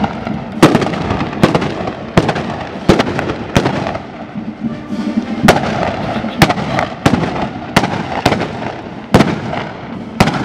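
Blunderbusses firing blank black-powder charges in a ragged volley, about a dozen sharp shots at uneven intervals of roughly a second.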